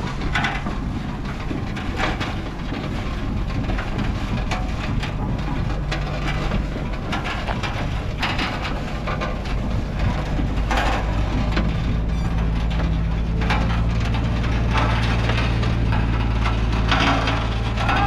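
1917 Fowler BB steam ploughing engine working: a steady low hum, broken every second or few by short bursts of noise at uneven spacing, growing a little louder in the second half.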